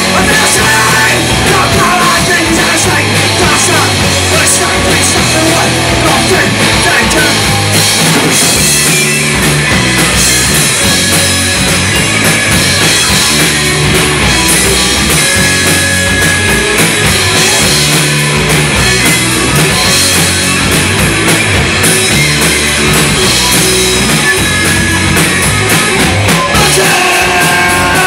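Punk rock band playing live: loud, distorted electric guitars, bass and a drum kit driving a steady fast beat, with some singing.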